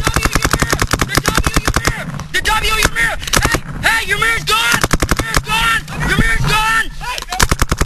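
Paintball markers firing rapid strings of shots, many a second, with players shouting in the middle stretch.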